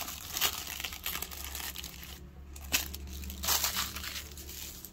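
Thin tissue packing paper crinkling as it is crumpled by hand: dense crackling for the first two seconds, then a short pause and a few brief rustles about three and a half seconds in, growing quieter.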